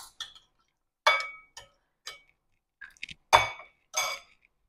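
Metal spoon clinking against a glass mixing bowl: five or six separate clinks, each with a short glassy ring, the loudest a little past halfway.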